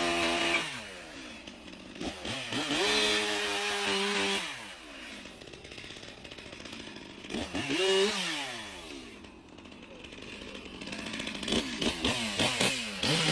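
Chainsaw engine revved several times between idling. It holds a high rev for about two seconds early on, blips up and back down about eight seconds in, and gives a quick run of short revs near the end.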